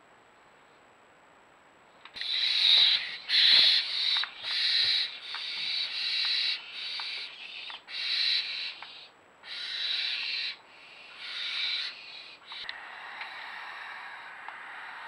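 Barn owls calling: a run of about ten harsh, hissing screeches, each under a second long, starting about two seconds in, followed by a softer, steady hiss near the end.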